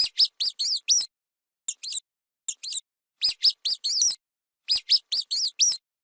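Rodent squeaking: quick runs of short, high, up-and-down squeaks, two to six at a time, in five clusters separated by dead silence.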